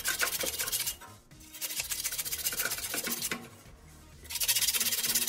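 Sandpaper rubbed quickly back and forth around a rusty blower motor shaft, in three bouts of fast scratchy strokes with short pauses between. The rust is being sanded off so the blower wheel's hub can slide off the shaft.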